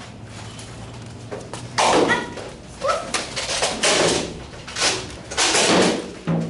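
A run of loud thuds and bangs from a Nerf Rival foam-ball fight, starting about two seconds in: blasters firing and balls striking walls and floor.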